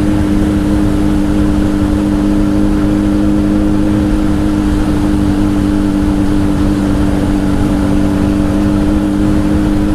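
Honda CBR1000's inline-four engine, fitted with a Two Brothers exhaust, running at a steady cruising speed with an unchanging pitch, under heavy wind rumble on the helmet microphone.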